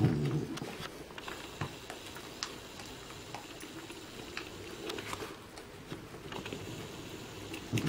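A puggle gnawing and chewing on a chew held between her paws: scattered small wet clicks and crackles. A short low growl right at the start is her guarding the chew.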